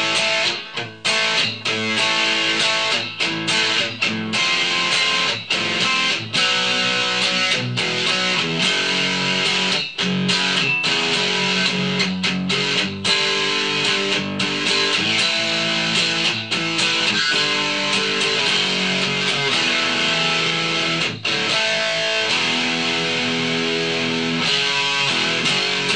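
Ibanez S470 electric guitar played through an amplifier on the Blue Velvet middle and Gravity Storm neck pickups together: chords and single-note phrases, choppy with short breaks early on and more sustained later, recorded through a camera's built-in mic.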